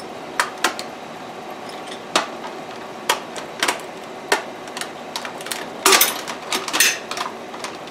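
The hinged metal clamping frame of a small vacuum-forming machine being worked open by hand: scattered clicks and clanks, with a louder flurry of clatter and crackling plastic about six seconds in as the thin formed sheet is freed.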